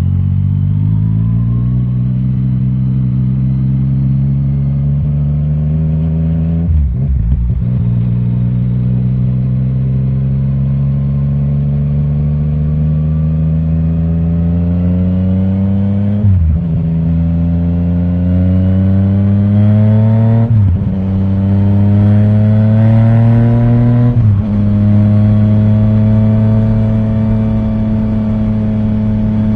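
Yamaha Tracer 900 GT's 847 cc three-cylinder engine through an Akrapovic titanium exhaust with the dB killer removed, accelerating hard through the gears. The pitch climbs steadily and drops sharply at each of four upshifts, the first about seven seconds in and the others closer together after the middle.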